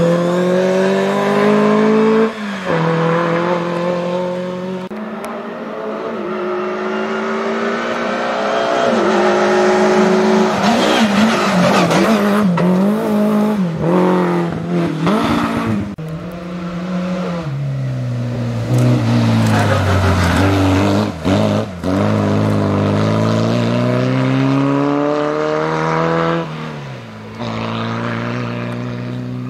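Rally cars, among them a historic Škoda saloon, driving flat out through a bend one after another. The engines rev up, drop back and climb again through gear changes, and the sound switches abruptly from one car to the next several times.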